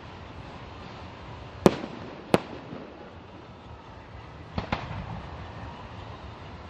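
Fireworks bursting: two loud sharp bangs about two-thirds of a second apart, then a fainter quick double bang a little over two seconds later, over steady outdoor background noise.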